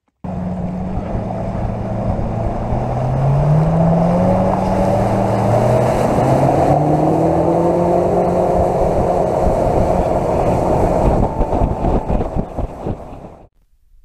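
Fishing boat's motor running under way and speeding up, its pitch climbing steadily for several seconds, with wind and water noise; it stops abruptly near the end.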